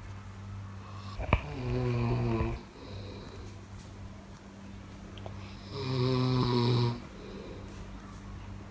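A person snoring: two loud snores about four seconds apart, each lasting about a second, with a sharp click just before the first.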